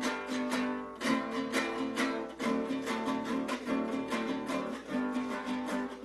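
A cinco larense, the small five-string guitar of Lara, Venezuela, strummed in a steady, unhurried rhythm of repeated chords. This is the pulsed, not-too-fast accompaniment style used to back the cuatro.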